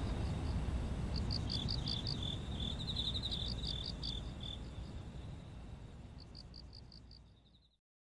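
Crickets chirping in short trains of rapid, evenly spaced pulses over a low steady background rumble. It all fades out over the last few seconds and stops just before the end.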